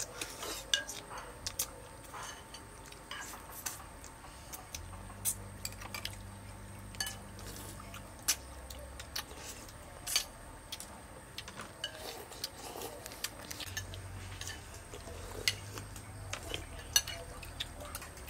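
Metal spoons clinking and scraping against ceramic soup bowls while eating, in sharp, irregular clicks through the whole stretch.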